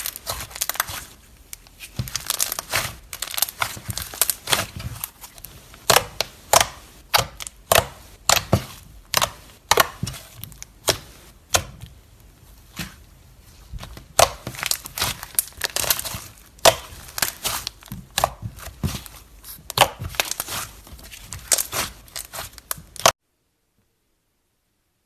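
Slime being squeezed and pressed by hand, with many sharp crackles and pops; it cuts off suddenly near the end.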